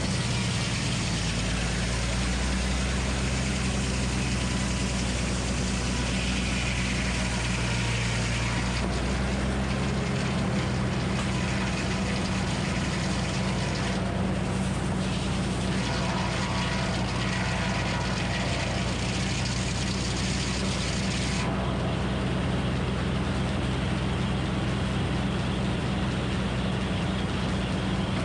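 Minneapolis Moline HEB 605 cubic inch engine running steadily, powering a Frick circular sawmill. The noise above it shifts a little about ten seconds in and again about three quarters of the way through.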